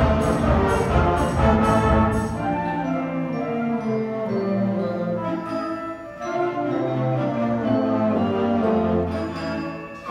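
Student concert band playing: saxophones, clarinets and brass holding sustained chords. A steady percussion beat drops out about two and a half seconds in, and the music thins briefly around six seconds and again at the end of a phrase.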